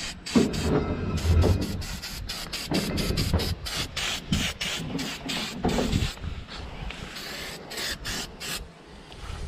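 Aerosol spray can hissing in many short bursts, about two or three a second, sprayed onto an outboard motor's leg housing to clean it, with some low rumbling under the first half.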